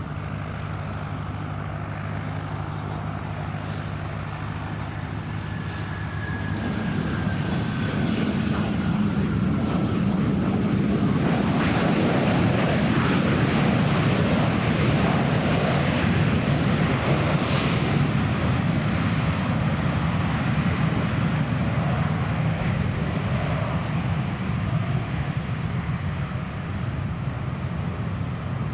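Airplane engines passing: the noise builds to a peak roughly halfway through and then slowly fades. Over the first ten seconds a thin whine falls gently in pitch.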